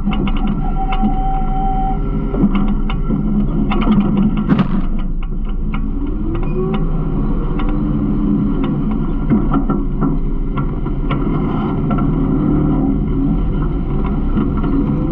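Garbage truck running, heard from the rear hopper: a steady engine and hydraulic hum with continual metal rattling and clanking. Its pitch rises briefly about six seconds in and again near the end.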